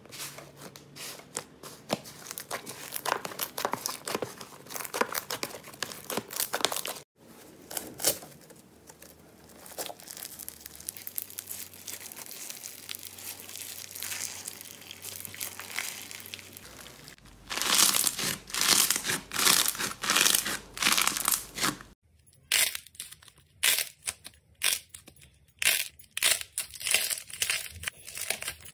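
Hands pressing, squeezing and kneading slime: dense crackling and popping with wet squelches. The texture changes abruptly three times as different slimes are played with.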